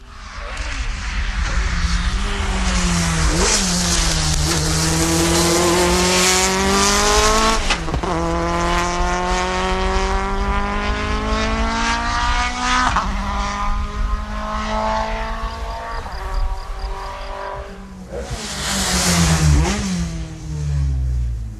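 Audi A4 Quattro Super Touring race car's two-litre naturally aspirated four-cylinder engine under hard acceleration, the revs climbing in each gear with quick sequential upshifts every four to five seconds. Near the end the revs fall away and rise again briefly.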